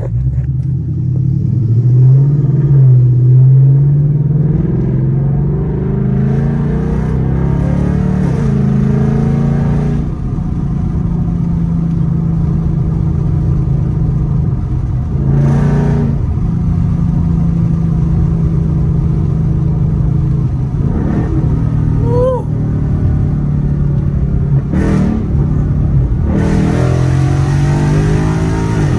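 Ford Mustang GT's 5.0-litre V8 accelerating hard from a stop with traction control off, heard from inside the cabin with the window down. The revs climb and waver for the first few seconds, then the engine settles to a steady cruise, and it pulls harder again near the end.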